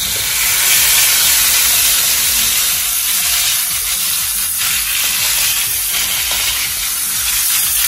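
Beef steaks sizzling in hot oil in a nonstick frying pan on a gas burner: a steady, dense hiss.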